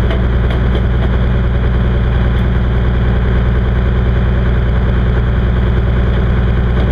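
A beam trawler's engine idling, a steady low drone with no change in speed.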